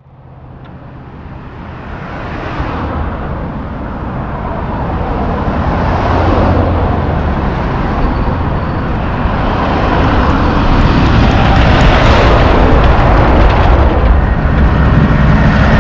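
Road traffic: cars passing and a heavy dump truck approaching, with a deep engine rumble under the tyre noise. The sound fades in from silence and grows steadily louder over the first several seconds, then stays loud.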